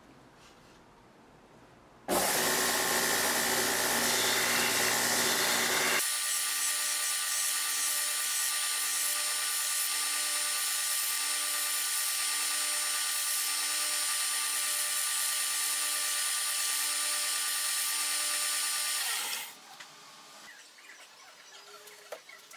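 A power tool working wood starts suddenly about two seconds in with a rough, noisy cut, changes about six seconds in to a steadier running sound with several held tones, and stops a few seconds before the end.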